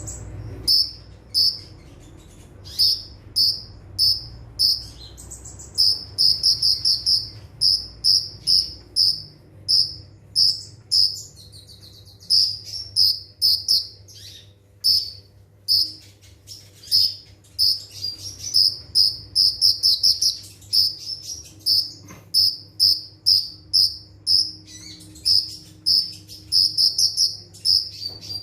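Kolibri ninja, a sunbird, singing in the rapid-fire 'nembak rapat' style: fast runs of short, sharp, high notes, several a second, with brief pauses between runs.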